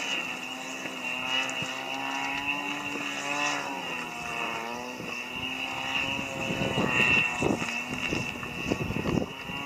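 A steady engine drone, its pitch dipping and rising a little about halfway through. Near the end a quick run of scuffs and knocks comes from walking on the stone path.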